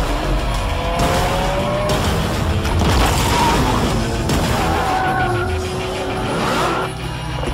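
Music mixed with a Lamborghini Aventador's engine revving up and tyres skidding, over a deep low rumble.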